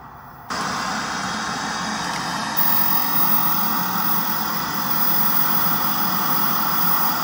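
Loud, steady static hiss like a detuned television's white noise, cutting in sharply about half a second in.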